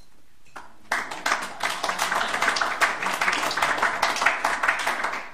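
Audience clapping, starting suddenly about a second in and keeping up steadily for about four seconds.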